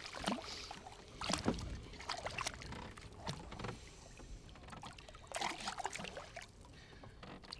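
Water splashing and sloshing in short, irregular bursts as hands and a netted trout move in a landing net at the side of a boat.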